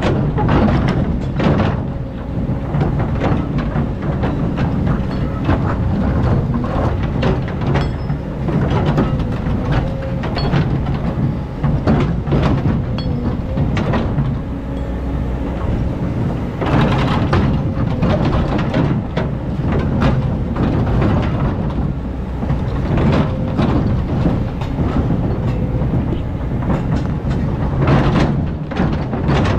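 Hydraulic excavator digging sand: the diesel engine running steadily under load with a faint steady whine, and irregular metal clanks and knocks throughout.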